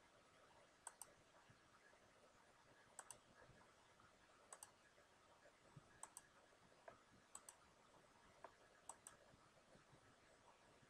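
Faint computer mouse clicks, each a quick pair of ticks, about six times at irregular intervals over near silence, as items are picked from drop-down menus.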